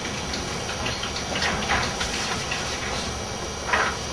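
Steady hiss of room and recording noise, with a few soft, brief rustles and a slightly louder one near the end.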